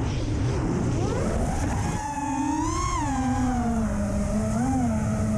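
Brushless motors of an FPV freestyle quadcopter whining. The pitch climbs sharply about a second in as the throttle is punched, then sweeps and dips with the throttle, over a rush of air.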